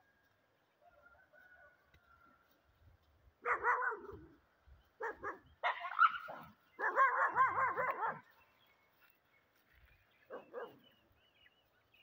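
Dogs barking and yelping in a string of short bursts from about three seconds in, the longest burst just past the middle, then two short barks near the end.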